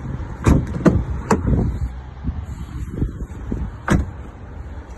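A few sharp clunks and clicks from a station wagon's doors and tailgate being worked, over a low steady rumble: three in the first second and a half and another near the end.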